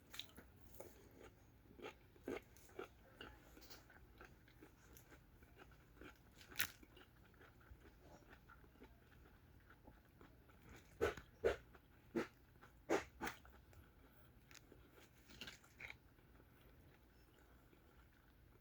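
Quiet chewing and crunching of stir-fried mixed vegetables (broccoli, carrots, zucchini, mushrooms), in scattered crisp crunches. A few louder bites come about seven seconds in and again between eleven and thirteen seconds in.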